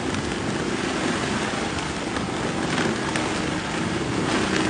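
Storm wind and heavy rain making a steady rushing noise, with gusts buffeting the microphone.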